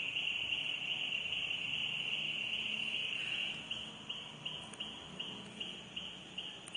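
Cricket chirping: a high, thin trill that breaks into regular chirps about three a second from a little past halfway.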